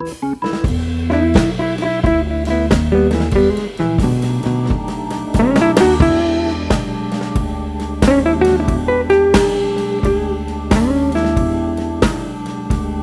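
Background music: electric guitar with bending notes over bass and a steady drum-kit beat, in a blues-rock style.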